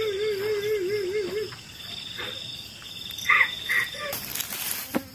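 A high, trembling wail, like a voice crying, for the first second and a half, over steady insect trilling. Two short cries follow near the middle, then a rushing hiss about four seconds in.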